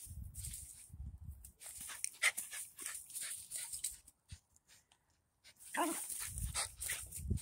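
Small scruffy-coated dog whining and giving short excited yips, with a brief rising call about six seconds in. It is worked up and begging for its ball.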